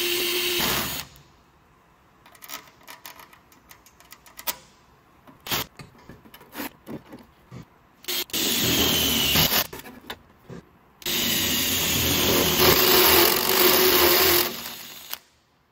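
Cordless drill with a step bit drilling holes through a thin sheet-metal plate. The drill runs in three spells: briefly at the start, for about two seconds past the middle, and for about four seconds near the end. Scattered clicks and taps come between the spells.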